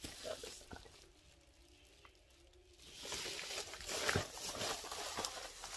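Rustling of a fabric windshield sunshade being handled and unfolded, with a few soft clicks; it goes almost quiet for a couple of seconds, then the rustling picks up again about three seconds in.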